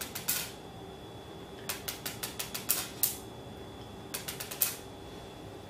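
Buckyballs, small neodymium magnet spheres, clicking as they bounce on a granite slab and snap against one another: three quick clusters of sharp clicks, one at the start, one about two to three seconds in, and one a little after four seconds.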